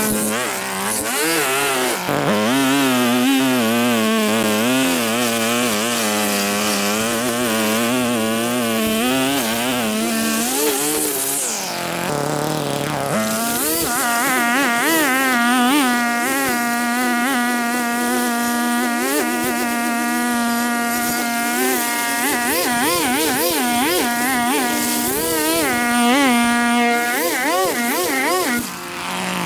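Small petrol engine of lawn-care equipment running at high revs with a buzzing drone whose pitch wavers as it meets the grass. It dips and breaks briefly about twelve seconds in, then picks up again.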